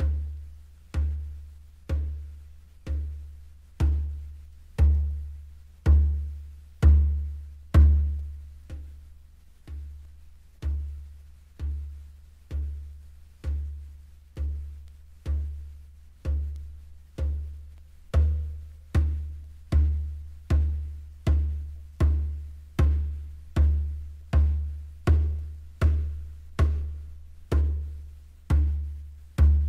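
Music: a low drum struck in a steady pulse, each stroke booming and dying away. The strokes come about once a second and swell louder, then softer, then a little faster and louder again past the middle.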